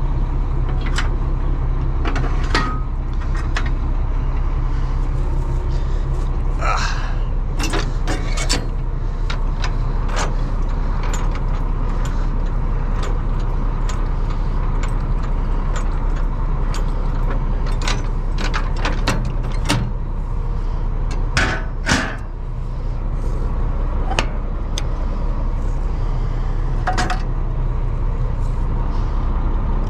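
Truck engine running steadily while driving, with frequent short rattles and clanks.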